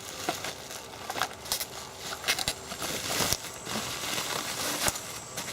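Bubble wrap and plastic packing being handled and pulled from a box, crinkling and crackling in irregular bursts.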